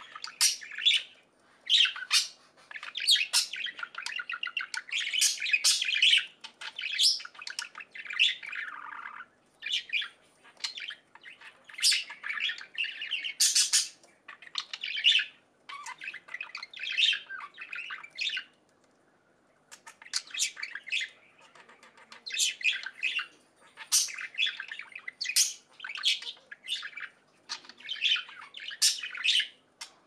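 Budgerigars chirping and chattering: quick runs of short, high calls, with a brief pause about two-thirds of the way through.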